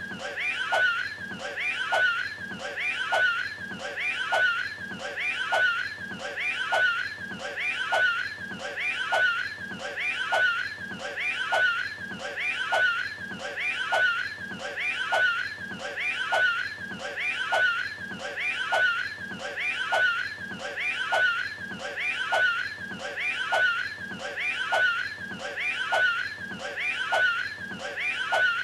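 The Cat in the Hat's voice making a short wheezing, hacking sound as he throws the hairball, one brief clip looped over and over about once every 1.2 seconds.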